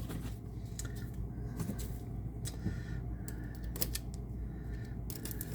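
Faint handling sounds of a boxed disc set being turned over in the hands: scattered light clicks and taps over a low steady hum.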